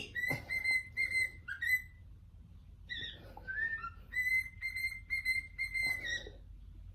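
Pet cockatiel whistling: runs of short repeated notes at one high pitch, with a couple of sliding notes in between.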